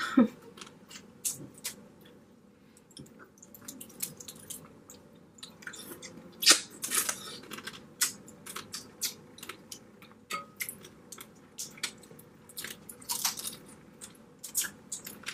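Eating blue crab legs close to the microphone: irregular crunches and clicks of shell with chewing.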